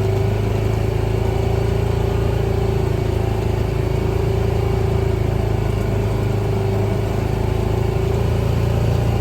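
An engine running steadily at a constant speed: an even, unchanging hum with a low held drone.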